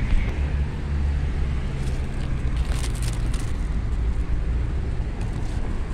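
Low, steady rumble of a road vehicle's engine and traffic going by, with brief rustling of zucchini leaves being handled around the middle.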